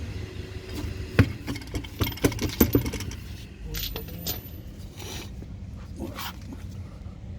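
Sharp knocks and clatter from handling the removed wheel and parts at a van's front wheel hub: one loud knock about a second in, then a quick run of knocks. A steady low rumble runs underneath.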